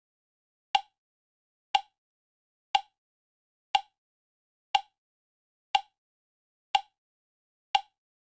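Countdown timer ticking: eight short, sharp clicks, evenly spaced once a second, with silence between.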